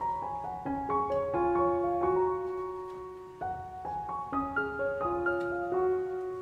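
Background piano music: a melody of clear single notes, each struck and left to fade.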